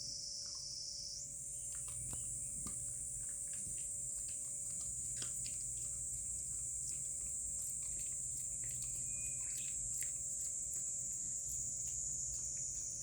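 A steady, high-pitched drone of insects, which steps up in pitch about a second in. Many short clicks are scattered through it.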